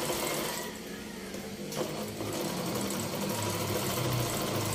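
Janome N3000 sewing machine running, the needle stitching through fabric in a fast, even rhythm; it eases off briefly about a second in, then runs on again.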